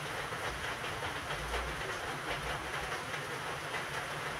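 Steady hiss of heavy rain falling, with a few low rumbles between about one and a half and three seconds in.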